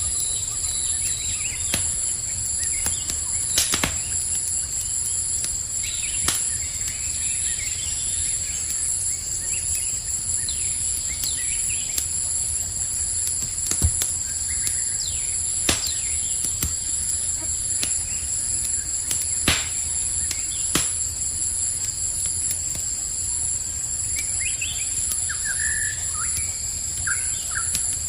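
Campfire crackling with a low steady rumble and about six sharp pops, over a steady chorus of crickets trilling in high pulsing tones. Short bird chirps come in near the middle and again near the end.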